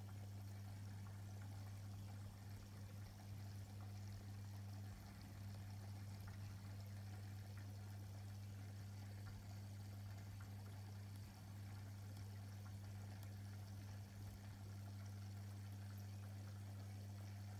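Aquarium pump's steady low hum, with faint trickling water from the tank's filtration.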